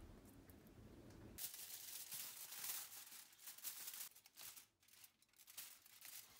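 Aluminium foil crinkling and rustling as hands press it down over a baking dish, starting suddenly about a second and a half in and thinning to a few faint rustles near the end.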